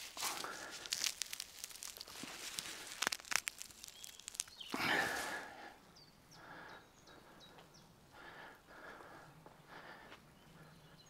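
Fresh green grass blades rustling and crackling as they are handled in the hands close to the microphone, with sharp crinkling snaps and a louder rustle about five seconds in. After that it goes much quieter, leaving only faint outdoor background.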